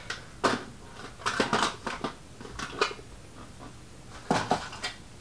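Packaging of a Funko Pop figure being handled as the figure is taken out of its box: short crinkles and knocks of cardboard and plastic, several times.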